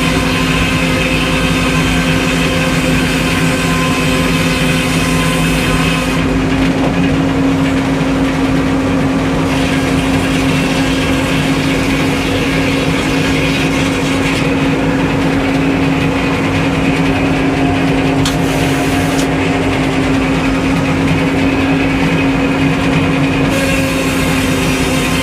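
Sawmill engine running steadily at a constant speed, with a hiss on top that drops away for a few seconds at a time, three times.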